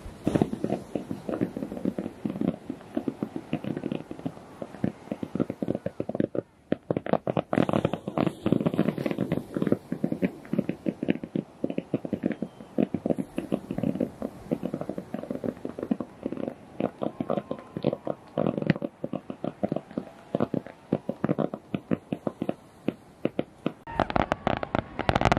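Fireworks display going off in a dense run of rapid pops and crackles, thinning briefly about six seconds in and growing heavier near the end.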